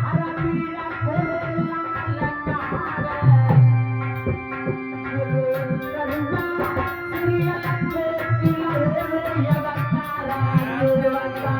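Instrumental passage of Indian devotional folk music: a hand drum plays a quick, steady rhythm under a held, sustained melody instrument.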